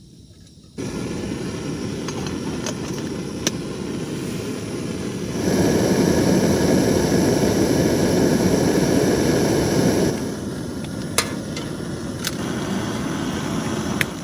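Portable camping gas stove burner running with a steady rushing flame, turned up about five seconds in and back down about ten seconds in, with a few sharp clicks of metal or cookware.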